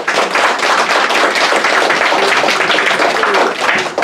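An audience applauding, many people clapping at once, starting suddenly.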